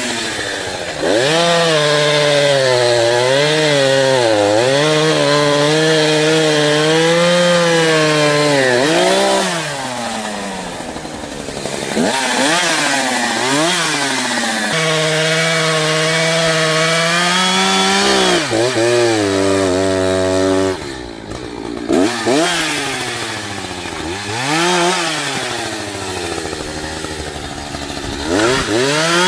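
Echo CS-590 Timberwolf two-stroke chainsaw cutting through a big tree at full throttle, its pitch wavering as the chain bogs in the wood. Several times the revs drop off and climb back to full speed.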